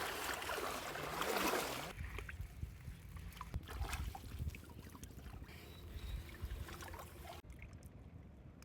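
Water sounds in the rain: a loud hissing splash for the first two seconds, then softer trickling with scattered small knocks, and the sound drops abruptly quieter about seven seconds in.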